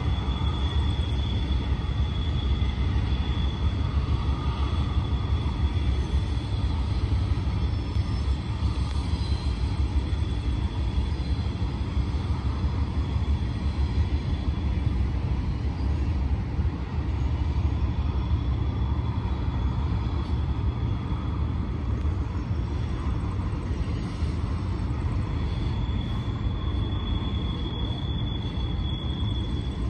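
Norfolk Southern freight train climbing the grade, heard at a distance as a steady low rumble of working diesel locomotives and rolling cars. A thin, steady high-pitched tone comes in at the start and again near the end.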